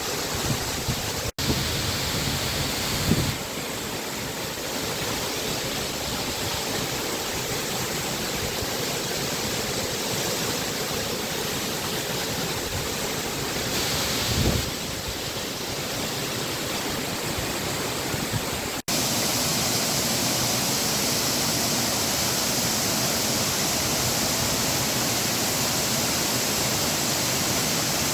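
Waterfall rushing, a steady, even roar of falling water. It breaks off for an instant twice, with the rush a little louder after the second break, and there are two brief low bumps along the way.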